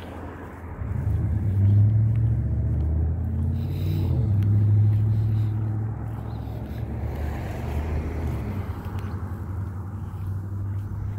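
A car or pickup truck driving past on the street: low engine and road rumble that swells about a second in, is loudest in the first half, then eases off.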